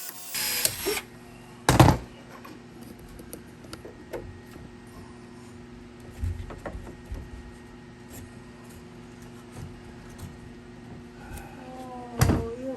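Tools and fittings being handled during pipe work: a sharp knock about two seconds in and another near the end, with scattered light clicks and taps between over a faint steady hum.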